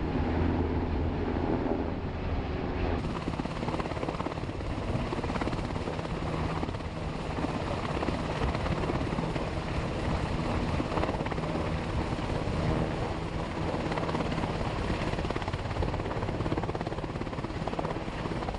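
Coast Guard rescue helicopter in the air overhead, its rotor and engines running with a steady, unbroken noise.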